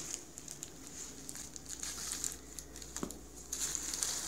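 Clear plastic sheet crinkling and crackling as it is handled and moved across the carpet with a metal food bowl on it. Louder bursts come right at the start and again from about three and a half seconds in, with a light knock just before.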